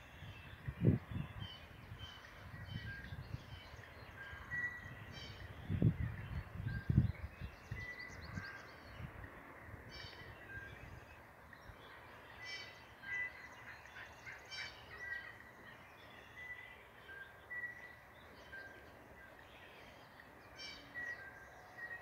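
Small birds chirping, one short high call repeating about once a second along with scattered higher trills. A few low bumps on the microphone about a second in and around six to seven seconds in.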